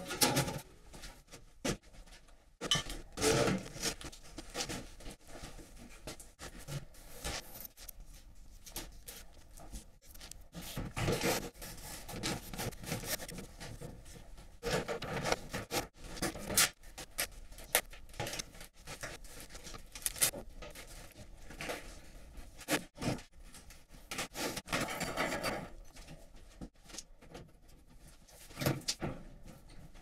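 Hands working high-temperature insulation into place around the heat exchanger: irregular rubbing, scraping and rustling with a few sharp knocks.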